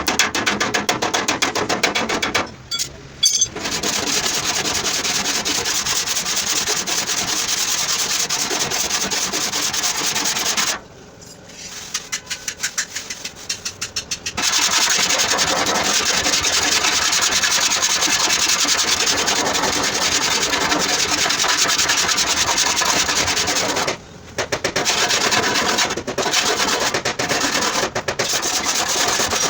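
Sanding on a car's body panel: abrasive paper rubbing steadily over the metal in long spells, with a few short breaks and a stretch of separate strokes about a third of the way in.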